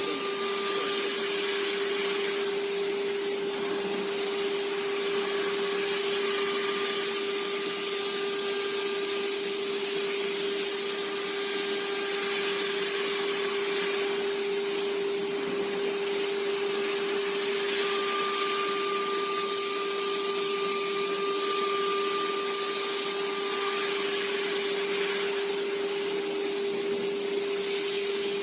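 CNC machine running: the spindle drill motor gives a steady whine over a hiss, while fainter higher tones come and go for a few seconds at a time as the axis motors move.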